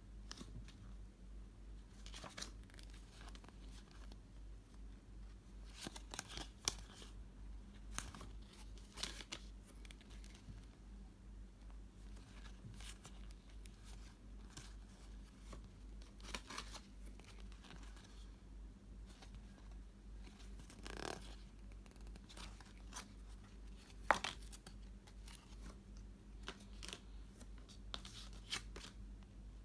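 Trading-card starter deck packaging being torn open and handled: scattered crinkles, tears and light ticks, one sharper tick near the end, over a steady low hum.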